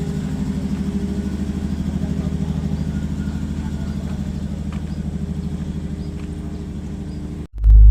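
An engine running steadily at idle, an even low throb, until it cuts off abruptly near the end.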